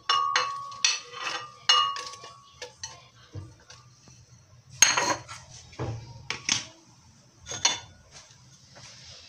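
Pieces of tomato, onion and green pepper dropped into a glass blender jar: a series of sharp knocks and clinks, the first few ringing briefly off the glass, the loudest about five seconds in. Near the end the jar's lid is knocked into place.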